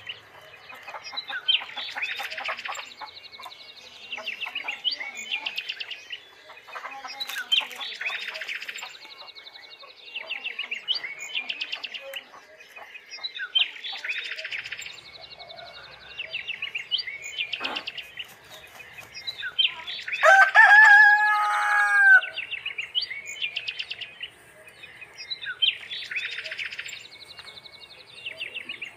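Chicks peeping in bursts that swell about every three seconds, with a loud rooster crow about two-thirds of the way through.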